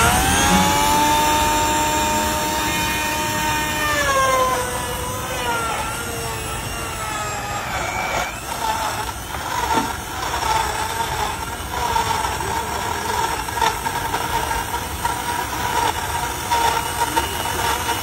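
Countertop electric blender running, chopping pineapple chunks with ice, cream and cashews into a shake. The motor whine drops in pitch about four seconds in, then holds steady as the mix turns smooth.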